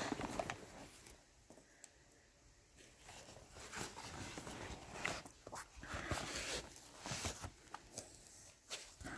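Hands handling the fabric cover and foam padding of a SubPac M2 wearable: irregular soft rustling and rubbing with a few small clicks, quieter for a couple of seconds about a second in.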